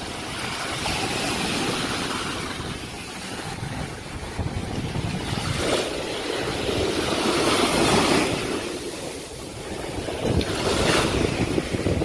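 Shallow surf washing up the sand around bare feet and drawing back, swelling and fading in three surges; the loudest comes a little past the middle.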